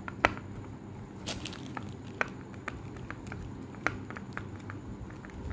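Small screwdriver tightening a screw through a hard drive enclosure's base plate into the drive: scattered sharp clicks and ticks of the screwdriver tip and screw, with one louder click just after the start.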